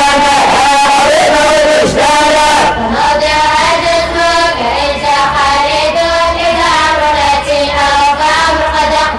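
Students chanting a memorised Arabic didactic text (matn) together in a slow, drawn-out melodic recitation, with long held notes.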